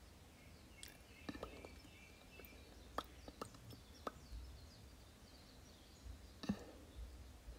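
Quiet room with a few faint, scattered clicks and small ticks from the lip tint wand and lips as the tint is applied; the sharpest click comes about six and a half seconds in.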